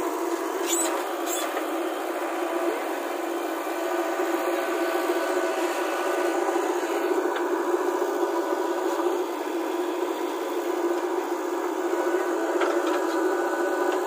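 JCB 3DX backhoe loader's four-cylinder diesel engine running steadily under working load while the rear backhoe arm digs and dumps soil. A couple of sharp clicks come about a second in, and another near the end.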